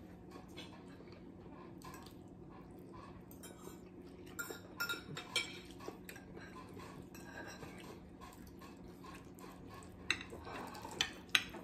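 Forks and a spoon clinking and scraping on plates during a meal, with a few short clinks about four to five seconds in and again near the end, over a steady low hum.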